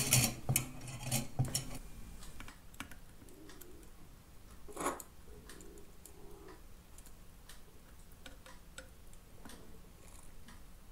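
Scattered faint clicks and taps of small tools and a circuit board being handled at a workbench. There are a few louder knocks in the first two seconds and one sharper click about five seconds in.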